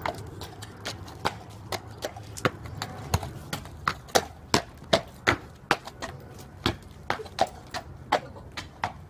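Horse's hooves clip-clopping at a walk: a steady rhythm of sharp strikes, about two to three a second.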